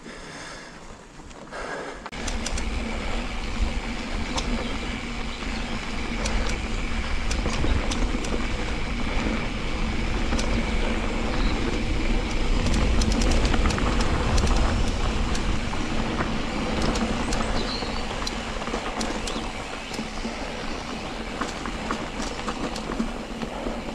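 Riding noise of an electric mountain bike on a rough trail, picked up by a chest-mounted GoPro: a steady rumble of wind and tyres with frequent clicks and rattles. It gets much louder about two seconds in.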